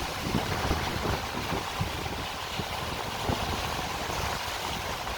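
Sea surf rushing steadily, with gusts of wind buffeting the microphone.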